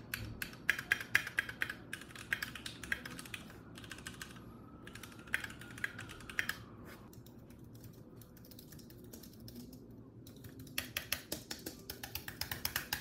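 Typing on a Keychron Q2 mechanical keyboard with Gateron G Pro brown switches: a quick, even run of key clacks that stops about six and a half seconds in. After a pause of a few seconds, typing starts again near the end on an Apple Magic Keyboard's low scissor-switch keys.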